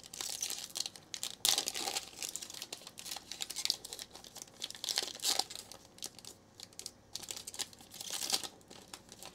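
Foil trading-card pack wrapper being torn open and crinkled by hand, in irregular bursts of crackling, loudest about one and a half, five and eight seconds in.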